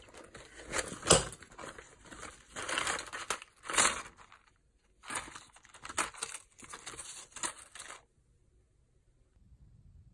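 Plastic and foil medicine packaging crinkling and rustling as hands rummage through a zippered mesh pouch, in irregular handling noises with one sharper crackle about a second in. The handling stops about eight seconds in.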